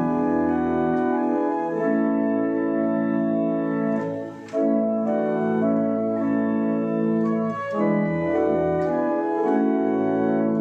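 Church organ playing a hymn in held chords that change every second or so, with a short break between phrases about four seconds in and deep bass notes joining at the start and again near the end.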